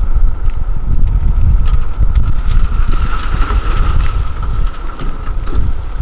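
Hyundai Trago 25-ton dump truck tipping its load: the engine runs as the hydraulic hoist raises the tipper body and soil slides out, with a steady high whine throughout. Heavy wind rumble on the microphone.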